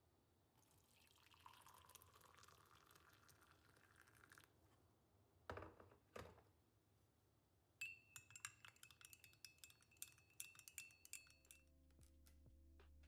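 Water being poured into a ceramic mug, the pitch of the pour rising slowly as it fills, followed by two sharp knocks. Then a plastic spoon stirring honey-lemon water in the mug, clinking quickly against its sides for about four seconds with a faint ringing tone; soft music comes in near the end.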